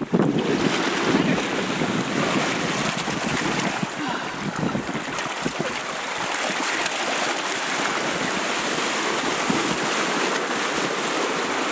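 Ocean waves washing and splashing against a balsa-log raft in a rough open sea, with wind buffeting the microphone.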